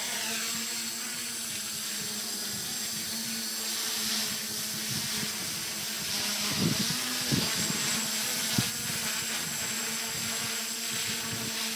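Electric quadcopter's brushless motors and propellers lifting off and hovering, with a steady buzzing hum. A few low thumps come about two thirds of the way through.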